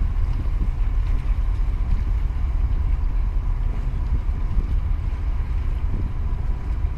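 Wind buffeting the microphone, a steady low rumble, with a faint steady high tone underneath.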